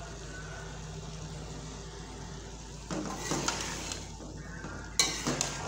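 Chickpeas and chickpea paste sizzling in hot oil and masala in a metal pan, being fried. About three seconds in, a slotted metal spoon starts stirring and scraping against the pan, with a sharp clank near the end.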